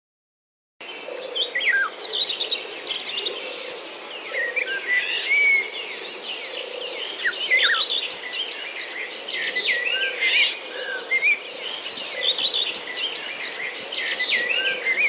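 Several birds singing and calling over one another in a busy chorus of quick chirps and trills, starting about a second in.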